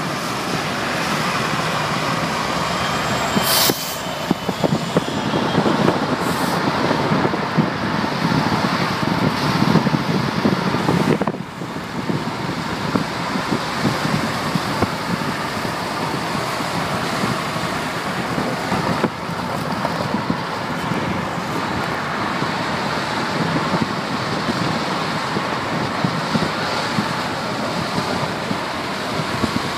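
Steady road and wind noise of a car driving along, heard from inside the car, with a brief high-pitched sound about three and a half seconds in.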